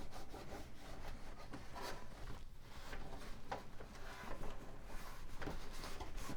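A cloth rubbing and wiping over a computer case's sheet-metal tray in uneven strokes, cleaning off dust and grime.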